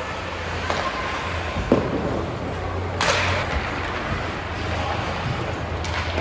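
Ice hockey play: sharp cracks of sticks on the puck, the loudest about three seconds in, over the scrape of skates and a steady low hum.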